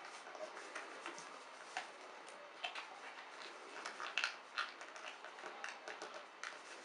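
Sheet of paper being handled and opened out by hand: faint, irregular crinkles and light taps.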